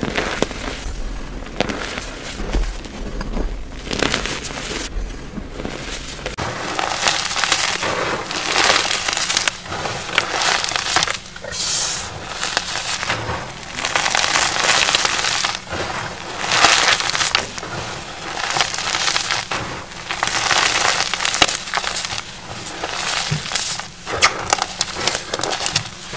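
Hands squeezing and crushing a heap of soft cornstarch and gym chalk powder, in repeated crunching squeezes about one every second or so.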